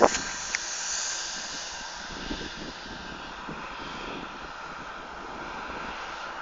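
Steady distant drone of a farm machine's engine working across a field, with a short gust of wind buffeting the microphone at the start.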